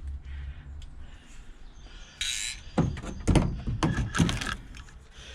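A short scrape, then a few knocks and thuds as parts of a vintage motorcycle sidecar's body are handled.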